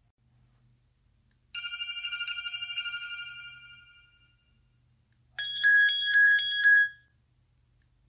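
Sony Xperia Z ringtones playing. A bright, bell-like electronic chime starts about a second and a half in and fades away over about two seconds. Then a trilling electronic ring sounds in three quick pulses near the end.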